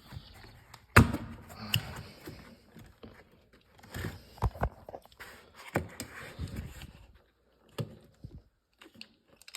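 Plastic interior trim piece being loosened and pulled off by hand: scattered clicks and knocks with short scraping and rubbing between them, the sharpest knock about a second in.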